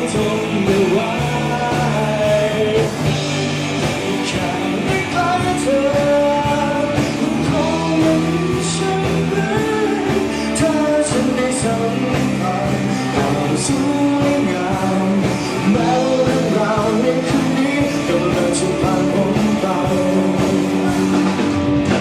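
A rock band playing a song with a singer over guitars, bass and drums.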